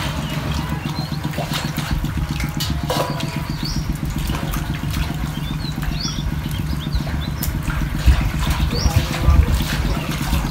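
Hands swishing and splashing water in a steel basin while lemongrass stalks are washed, over a steady low pulsing engine drone. Short high bird chirps recur every second or two.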